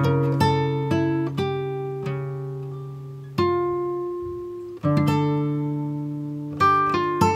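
Background music: acoustic guitar picking single notes and striking chords that ring out and slowly fade, with fresh chords about three and a half seconds in, about five seconds in and near the end.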